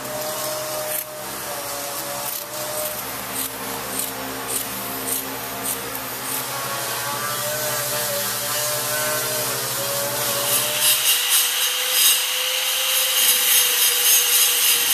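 A steady machine hum with scattered light clicks. About eleven seconds in, the hum stops and an angle grinder comes in, grinding a metal pipe in short, repeated, harsh strokes.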